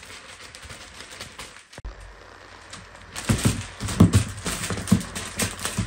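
Foil wrapping paper crinkling and rustling as it is unrolled and pulled over a large cardboard box. It is faint at first, then a dense run of sharp crackles fills the last few seconds.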